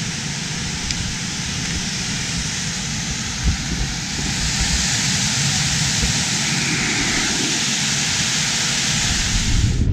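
River rapids rushing over smooth rock slabs: a steady, even rush of water that grows a little louder about four seconds in.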